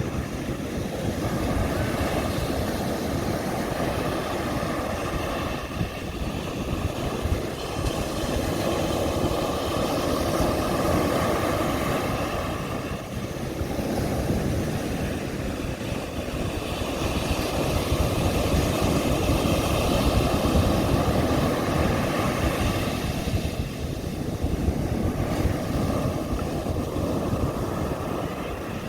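Ocean surf breaking on a sandy beach: a continuous rush of waves that swells and eases in slow surges every several seconds.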